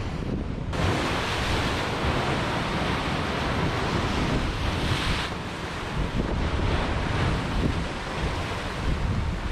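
Sea surf breaking and washing over rocks at the foot of a cliff, a steady hiss of foam that comes in suddenly under a second in, with wind buffeting the microphone underneath.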